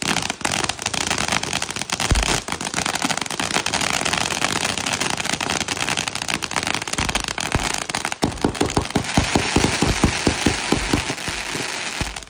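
Firework fountain spraying sparks with dense, continuous crackling. From about eight seconds in it turns into a fast run of sharp pops and thumps as the sparks shoot higher.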